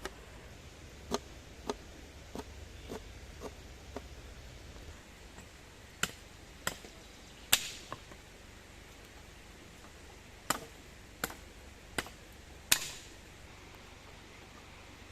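Knife chopping on a wooden cutting board: about fourteen sharp, uneven strokes, a quick run in the first few seconds, then scattered strokes with pauses between them.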